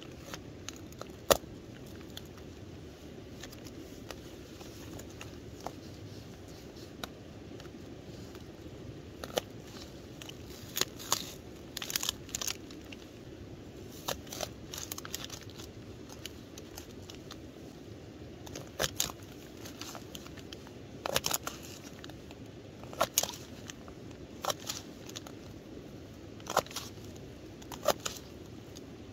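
Spring onions being chopped with a Buck bushcraft knife on a plastic tub lid. Irregular sharp crunches and clicks of the blade cutting through and tapping the plastic, some in quick runs, over a steady background hiss.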